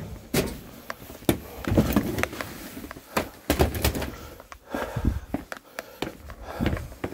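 Footsteps on a concrete floor and the knocks of gear being carried, going out through a door, with irregular thumps and clicks.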